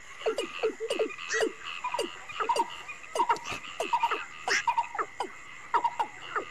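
A chorus of frogs calling: many short calls, each dropping in pitch, a few a second and overlapping, over a steady high drone of crickets.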